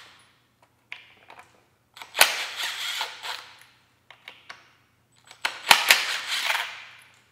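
Cordless impact wrench with a modified 21 mm socket hammering loose the brass nuts on an electric motor's phase-lead terminals, in two short bursts about two seconds in and again about five and a half seconds in, with a few light clicks from the socket and nuts between them.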